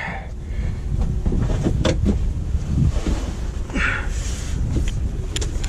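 Wind buffeting the microphone as a steady low rumble, with a few short knocks scattered through it.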